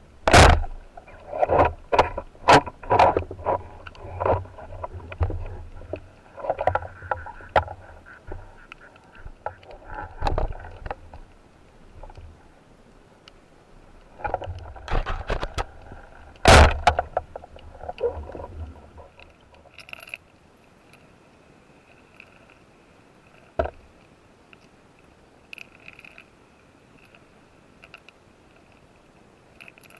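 Underwater spearfishing gear noise: a sharp crack just after the start, then a run of knocks, clicks and low rumbling handling noise from the speargun and line against the camera housing, with a second sharp crack about a third of the way through the noise. The noise dies away after about 19 s, leaving a faint hiss with a few small clicks.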